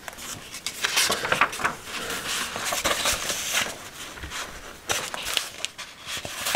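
Paper rustling as a hand handles a score pad's sheets, in irregular swishes with small clicks and taps.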